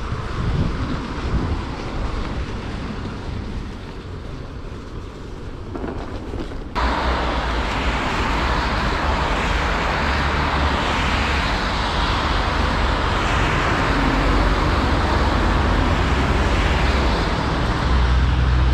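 Steady road-traffic noise, with a low rumble that suddenly turns much louder and hissier about seven seconds in.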